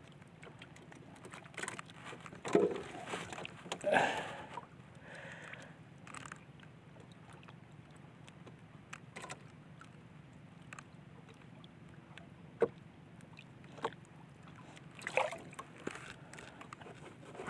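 Water lapping quietly against a small outrigger boat's hull, with a few soft knocks and splashes scattered through it.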